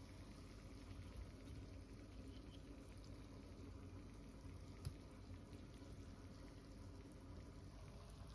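Faint, steady bubbling of something cooking on the stove, with a single sharp click about five seconds in.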